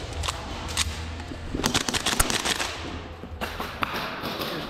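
Airsoft gun shots: a couple of single sharp cracks, then a rapid string of about ten shots in roughly a second, about two seconds in.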